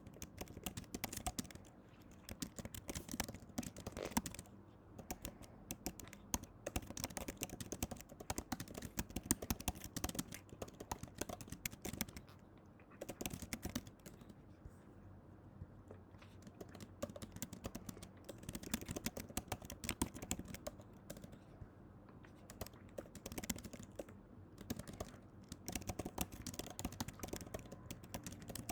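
Rapid, irregular clicking and tapping in bursts, like typing, with a quieter stretch about halfway through.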